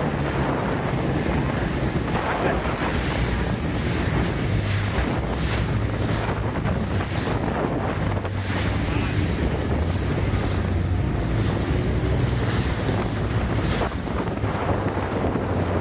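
Boat engine running with a steady low drone, under wind buffeting the microphone and water rushing past the hull.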